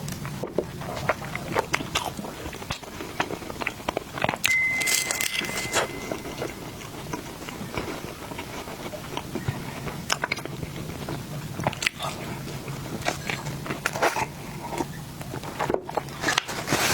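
Close-miked biting and chewing of food, with many small mouth clicks. A short steady high tone sounds about four and a half seconds in.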